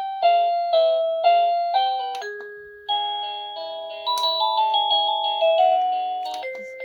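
Wongkuo wireless doorbell chime playing electronic melody tunes: a string of struck, fading notes, with one tune giving way to another about three seconds in.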